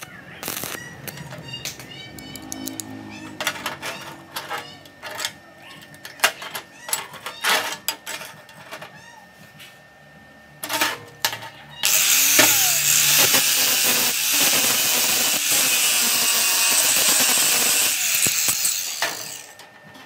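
Scattered metal clinks and taps, then about twelve seconds in a loud, steady crackling hiss of a stick-welding arc on steel plate, lasting about seven seconds and cutting off shortly before the end.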